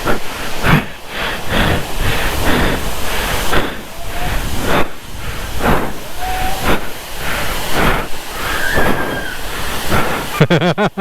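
Overflow water from a reservoir rushing over rocks, a steady loud hiss, with people's voices and calls mixed in.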